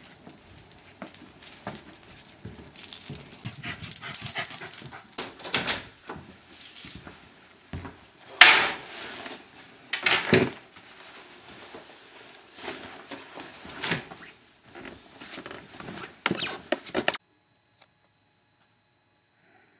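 American Eskimo dog barking in separate loud bursts, the loudest about eight and ten seconds in, mixed with keys jangling and a door being handled.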